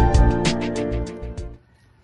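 Intro background music: sustained chords over a quick, even run of notes, about six a second, that cuts off suddenly about one and a half seconds in.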